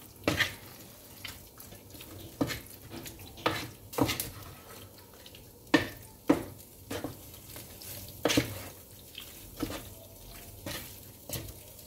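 Wooden spoon stirring diced chicken in a thick cream sauce in a frying pan, scraping and knocking against the pan about ten times at irregular intervals as the sauce thickens.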